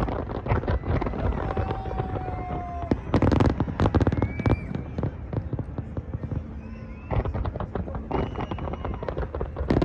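Large aerial fireworks display: a dense run of bangs and crackling shell bursts, loudest a few seconds in, with a few whistling tones, one gliding slowly down in pitch early on.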